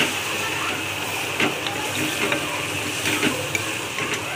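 Keema masala sizzling as it is fried down in a metal kadai, with a metal ladle scraping and clinking against the pan a few times as it is stirred.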